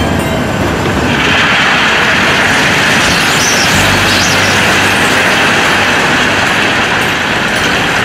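Dump truck's diesel engine running while the tipper body is raised; about a second in, a loud rushing noise joins as the crushed stone begins sliding out of the tilted body onto the pile.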